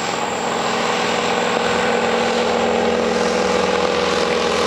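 Crop-dusting biplane's piston engine and propeller droning steadily as it passes overhead, growing a little louder over the first two seconds and then holding.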